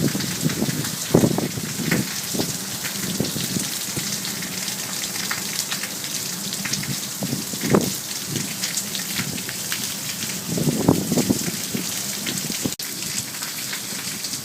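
Storm noise: a steady hiss with irregular gusts of wind buffeting the microphone, strongest about a second in, near the middle and about three-quarters through.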